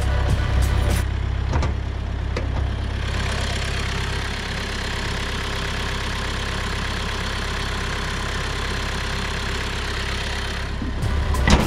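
Toyota RAV4 2.2 D-CAT four-cylinder turbodiesel idling steadily, heard over the open engine bay. A short sharp noise near the end is the loudest moment.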